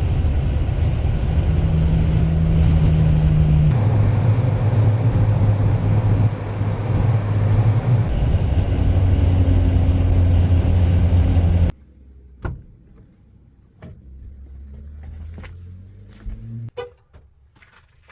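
Steady vehicle running noise with a low hum, which cuts off suddenly about twelve seconds in, leaving a quieter stretch with scattered clicks and knocks.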